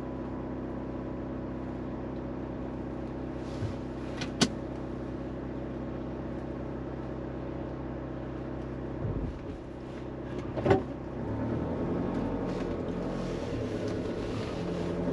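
Car engine running steadily, heard from inside the car, with a sharp click about four seconds in and a knock after about ten seconds. After that the engine grows louder and its note wavers.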